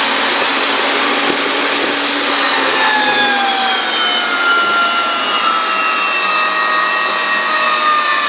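Ridgid 500 powered pipe threader running steadily as it threads 2-inch gas pipe, a loud continuous machine noise with a whine that slowly falls in pitch over the second half.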